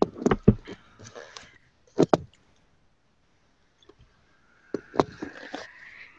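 A few sharp knocks and clicks in three clusters about two seconds apart, with faint rustling between them and a faint steady tone coming in near the end.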